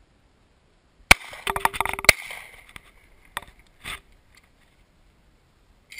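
Handgun shots: a loud crack about a second in, a jumble of sharper, quieter sounds, and a second equally loud crack a second later, then a fainter crack about a second after that.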